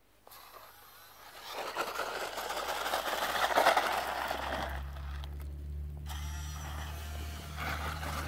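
RC rock crawler's electric drivetrain whirring as it climbs, tyres scrabbling and scraping over loose dirt and rock. A steady low hum sets in about halfway through.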